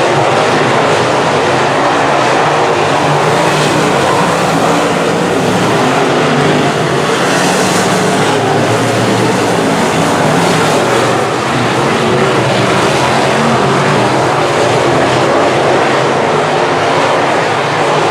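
A field of semi late model race cars racing, their engines making a loud, steady drone.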